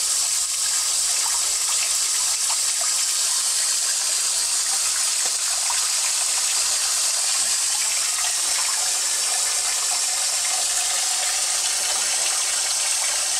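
Tap water gushing steadily from a faucet into a deep utility sink, filling it as a warm-water bath.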